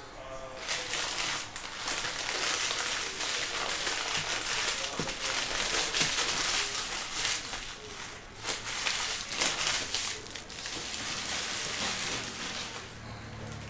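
Foil wrapper of a Panini Prizm basketball hobby card pack crinkling as it is torn open and handled. The crinkling is steady and starts just under a second in, then stops shortly before the end.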